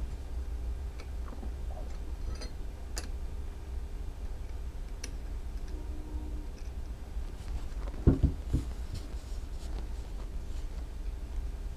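Scattered light clicks and taps of small brake caliper parts being handled and fitted, over a steady low hum, with a louder double knock about eight seconds in.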